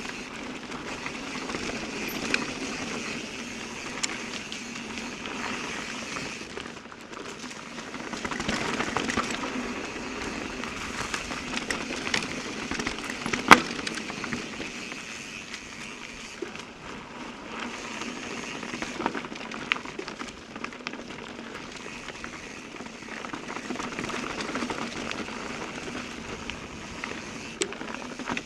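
Mountain bike being ridden over a dirt trail: steady rolling tyre noise with crackle, broken by scattered clicks and knocks, and one sharp knock about halfway through.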